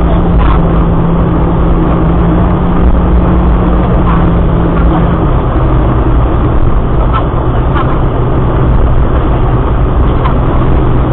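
Car engine and road noise from a car being driven hard, a steady loud drone whose engine tone drops in pitch about five seconds in.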